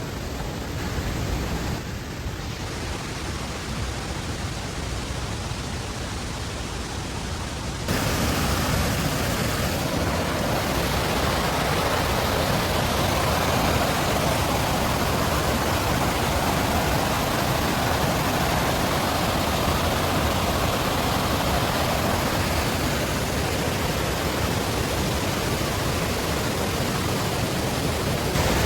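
Steady rush of fast-flowing, rain-swollen creek water and cascade; it jumps abruptly louder about eight seconds in.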